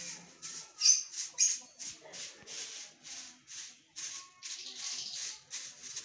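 Brushing and scraping strokes across a bird cage's floor, clearing droppings, about three short scratchy strokes a second, with two sharper ones in the first second and a half.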